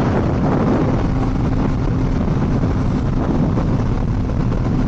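Honda CBR1000RR-R Fireblade's inline-four engine running with a steady note at highway cruising speed, mixed with heavy wind noise on the microphone.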